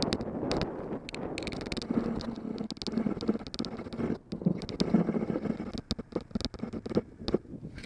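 A mountain bike rolling on asphalt: a steady rumble from the knobby tyres, with frequent rattling clicks and knocks from the bike.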